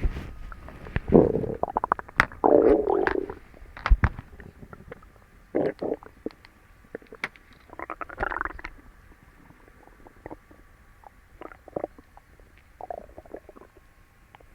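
A person's stomach gurgling and rumbling loudly in irregular bubbling bursts, strongest in the first few seconds and then weaker every couple of seconds, with a sharp knock about four seconds in. The gut is busy digesting the first meal eaten in a long while.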